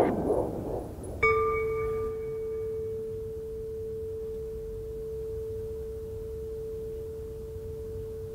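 Film soundtrack: a pulsing sound stops right at the start, and about a second in a single struck, ringing tone sets in and holds at one steady pitch, its higher overtones dying away within two seconds.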